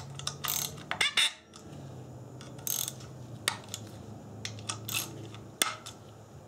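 Ratchet and socket clicking and clinking in short irregular spurts while valve cover bolts are hand-tightened on a Subaru boxer engine, kept only snug at about 5 foot-pounds because the fasteners break easily.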